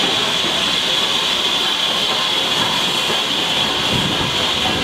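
Steam locomotive passing slowly along a station platform with a steady hiss of steam, its coaches rumbling past on the rails behind it.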